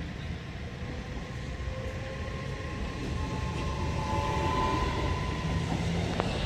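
Trenitalia Pop (Alstom Coradia Stream ETR104) electric multiple unit approaching and passing over a level crossing. The rumble of its wheels on the rails grows louder about halfway through, along with a whine.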